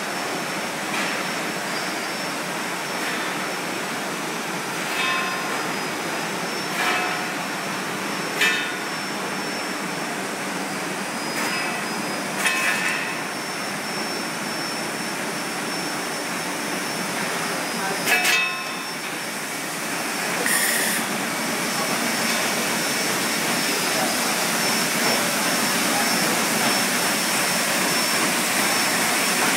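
Automatic chocolate pillow packing machine running with a steady mechanical whir and a faint high whine, with a few short knocks and clatters from its mechanism now and then.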